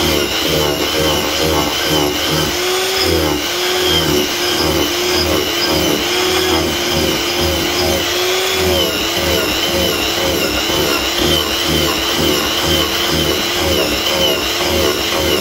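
Angle grinder with a round carving disc hollowing out the inside of a cherry-wood blank. It runs continuously, and its whine wavers up and down as the disc bites into the wood and eases off.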